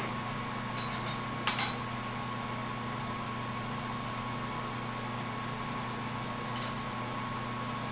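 Glass rods clinking against each other as they are picked through and handled: a few light clinks about a second in, a louder one at about a second and a half, and another near the end. Under it a steady hiss of the lampworking torch flame with a low hum.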